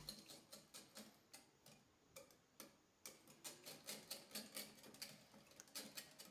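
Wire whisk beating raw eggs in a glass bowl, its wires clicking faintly against the glass in quick ticks that come faster about halfway through.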